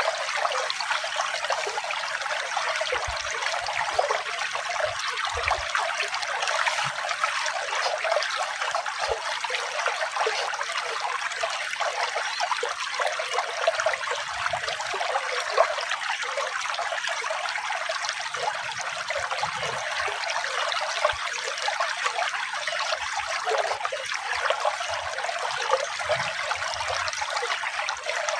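Water flowing and trickling steadily, a continuous splashing rush with no breaks.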